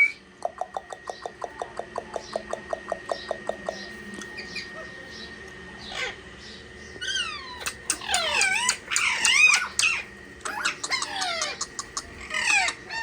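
Parrots calling: a quick run of short chirps, about six a second, then after a pause several loud, harsh calls, each falling in pitch.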